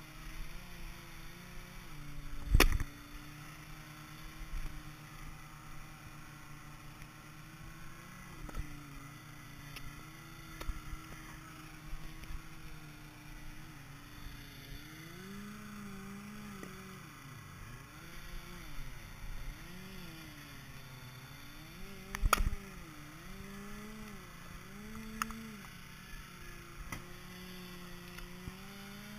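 Small gas engine of a towable log splitter running steadily. In the second half its pitch dips and recovers again and again as it comes under load splitting logs. Two loud thumps, a few seconds in and about three-quarters of the way through.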